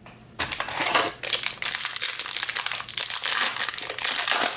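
Foil wrapper of a trading-card pack crinkling as it is opened and handled, a dense crackling starting about half a second in.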